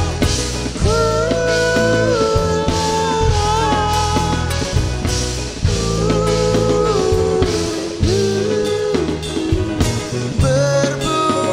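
Live band performance of a slow folk-jazz song: a male voice singing long, gliding notes over acoustic guitar, a steady bass line and drums.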